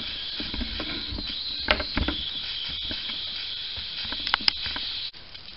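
Steam hissing steadily from a small model steam engine with a single-acting wobble cylinder as it comes up to steam, with a few sharp clicks and spits; the steam is condensing in the still-cold cylinder, so the engine is not yet running. The hiss cuts off suddenly about five seconds in.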